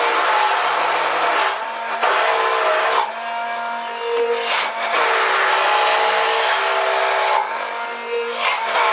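Philips immersion (stick) blender motor running under load while blending thick, already emulsified mayonnaise in a plastic beaker, its whine shifting in pitch several times as the head is worked up and down.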